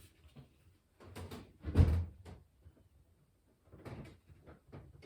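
Knocks and one heavy thump about two seconds in, with more light knocks near the end, as a refrigerator on a small hand cart is wheeled and bumped through a doorway.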